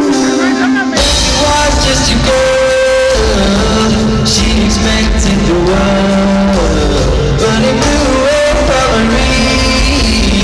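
Live pop band soundcheck with singing, recorded on a phone: the full band with drums and bass comes in about a second in under the vocal melody.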